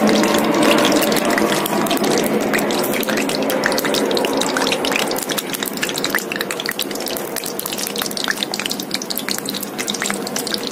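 Cornflour-coated prawns deep frying in hot oil in a wok, sizzling with many sharp crackles over a steady rush that gradually eases; the prawns are added to the oil one at a time.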